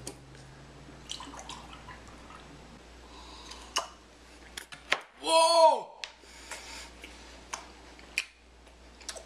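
Milk poured from a plastic gallon jug into a drinking glass, then small clinks of the glass and a person slurping milk. About five seconds in there is one short, loud vocal sound.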